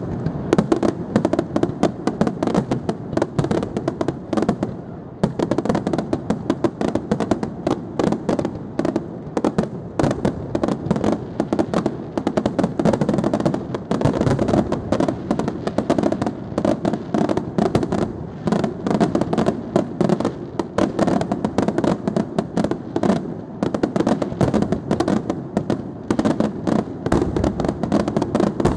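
Professional aerial fireworks display: shells bursting in a rapid, unbroken volley of bangs and reports, many a second.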